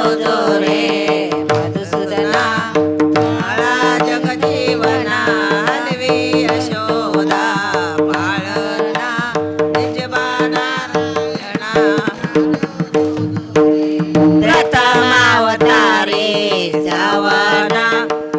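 Instrumental interlude of a Marathi devotional cradle song (paalna): a melody line with wavering pitch over a steady held drone and drum accompaniment.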